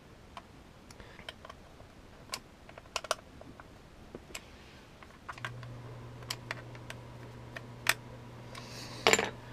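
Scattered light clicks and taps from a Celestron NexStar telescope's plastic hand controller and a small screwdriver as the controller is put back together and handled, with a louder cluster of clicks near the end. A steady low hum starts about five seconds in.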